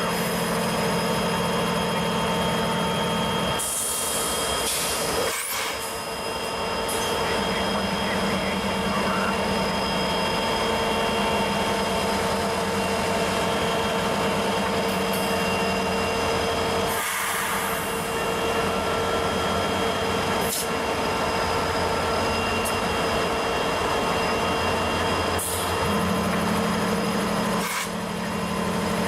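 Diesel freight locomotive engines running at a steady idle-like hum, broken by a few short sharp knocks.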